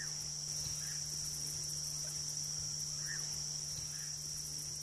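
Night chorus of insects: a steady, high-pitched trill, with a few faint short calls now and then and a low steady hum underneath.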